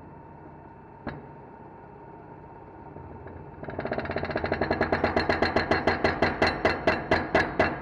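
Shop press forcing a new wheel hub bearing into the steering knuckle: a steady mechanical hum with one click, then from about halfway a loud rhythmic pulsing from the press, about five beats a second, getting louder.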